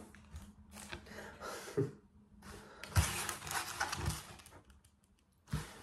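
Paper burger wrappers rustling and crinkling as the wrapped burgers are handled and set out on a table, with a few soft knocks. The loudest knock comes about three seconds in.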